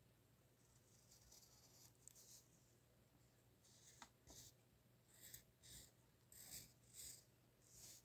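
Pencil lead scratching faintly on paper as lines are drawn: a few longer strokes, then a run of short quick strokes, about two a second, in the second half.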